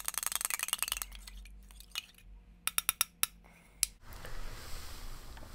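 A spoon stirring a drink in a cup, clinking rapidly against the side for about the first second, then a few scattered single clinks; the lemon iced-tea powder is not dissolving. A low steady hiss takes over about four seconds in.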